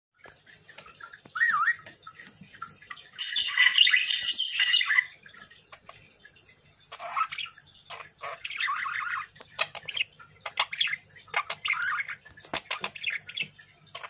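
Budgerigar calling: a short whistled warble, then a loud harsh squawk lasting about two seconds, followed by a run of quick chirps and chatter.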